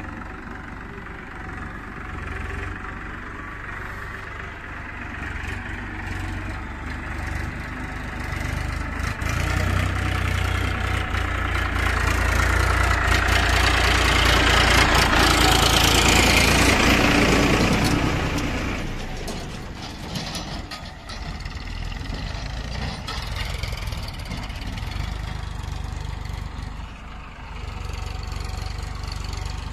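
Farmtrac 41XP tractor's diesel engine running under load as it hauls a filled trolley. It grows louder as the tractor comes close and passes, loudest about halfway through, then drops back. A backhoe loader's engine runs steadily underneath.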